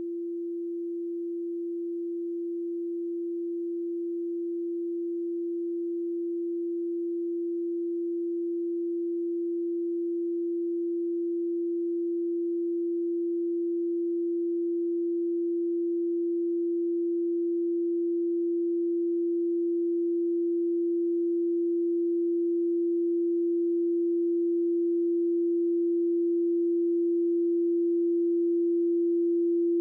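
A pure electronic 341.3 Hz sine tone, holding one steady pitch and slowly growing louder.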